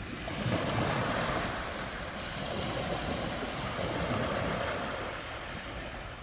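Small surf washing in over shell-covered sand at the water's edge, swelling about half a second in and easing off near the end.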